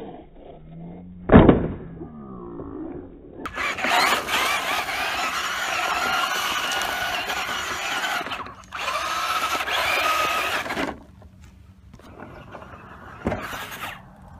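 Traxxas Slash 2WD RC truck landing hard from a jump about a second and a half in, then its brushed Titan 12T electric motor whining at full throttle for several seconds, briefly letting off partway through, as it drives over the dirt. Another sharp knock from a landing comes near the end.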